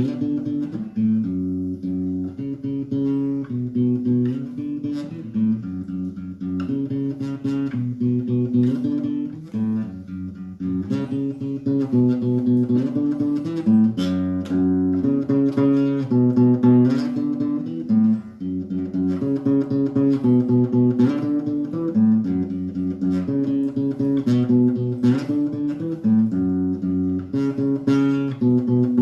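Acoustic guitar playing a chord progression, the chords strummed and plucked in a steady rhythm.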